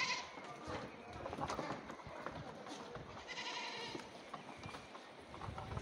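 Goats bleating: one high bleat right at the start and another about three seconds in, each about half a second long, over faint scattered clicks.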